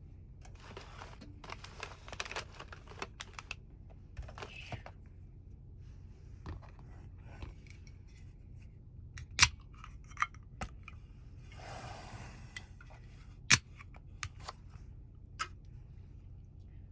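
Small handling noises: scattered clicks and rustling, with two sharp, loud clicks about nine and thirteen and a half seconds in and a short rustle between them.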